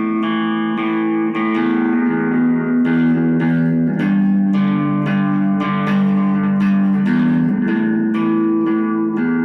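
Instrumental guitar music: plucked notes ring over held chords that change about once a second.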